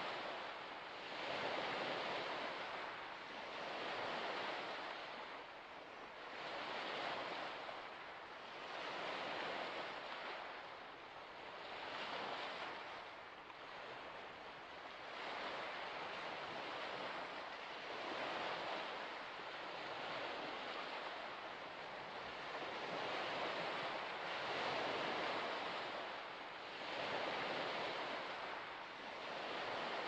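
Small waves washing onto a shore: a steady rush of water that swells and falls back about every two to three seconds.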